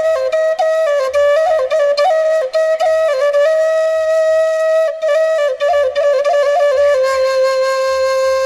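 Bansi, the Minangkabau traditional bamboo flute, playing a quick ornamented melody that settles on a long held note near the end.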